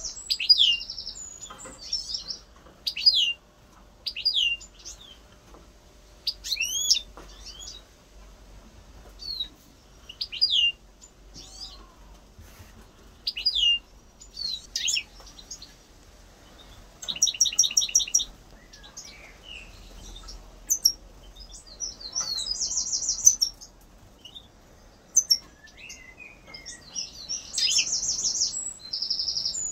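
European goldfinch singing: a run of short, high sliding twitters, broken a few times by buzzy rapid trills.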